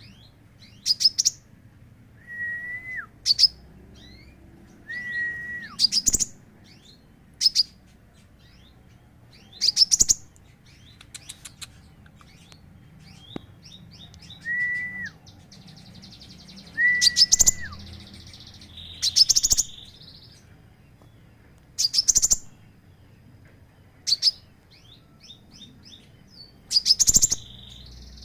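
Several caged songbirds calling: sharp high chirps every second or two, a clear whistle held briefly then dropping in pitch, heard four times, and buzzy trills near the middle and again near the end.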